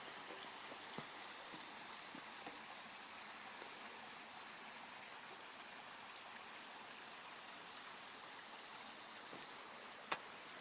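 Faint steady outdoor hiss with a few light clicks.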